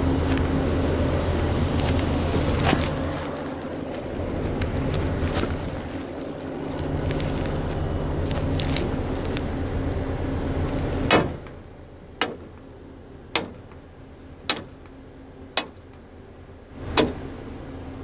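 Steady drone of drilling-rig machinery running, with a low hum and a few scattered knocks. About eleven seconds in the drone drops away, and a run of sharp footsteps follows, one roughly every second.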